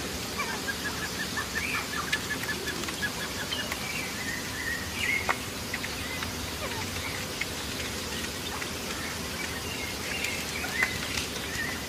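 Caged birds chirping: a quick run of short, evenly spaced chirps, about five a second, in the first few seconds, then scattered calls with a couple of sharper ones, over a steady background hiss.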